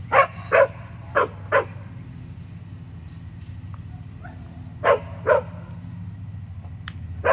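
A dog barking in quick pairs: two pairs in the first two seconds, another pair about five seconds in, and a single bark at the end, over a steady low hum.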